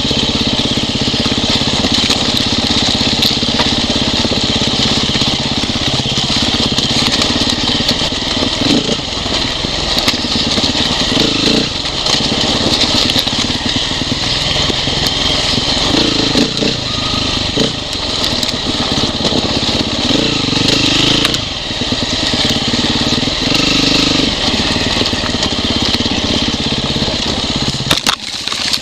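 Enduro dirt bike engine heard from on board, its revs rising and falling as it rides down a rocky trail, with stones and gravel crunching and clicking under the tyres. The sound breaks off briefly near the end.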